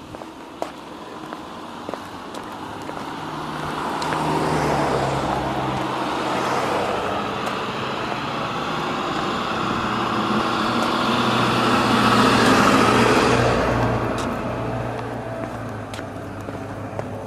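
Road traffic passing: vehicle engine and tyre noise builds up, peaks about four seconds in, stays loud, peaks again around twelve seconds and then fades away. Footsteps on a concrete sidewalk tap faintly at the start and near the end.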